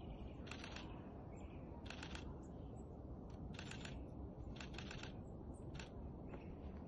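Snow crunching in short crackly clusters about once a second, like slow footsteps on packed snow, over a low steady rumble of wind on the microphone.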